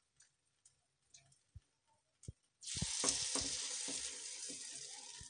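A few faint spoon taps, then about two and a half seconds in a steady hiss starts suddenly with a few knocks and slowly fades: suji appe batter sizzling as it is spooned into the hot, oiled cavities of a nonstick appe pan.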